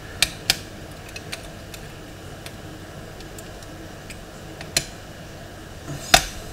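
Metal lock picks working inside a five-lever mortice lock: a few scattered sharp metallic clicks, two close together just after the start and the loudest near the end.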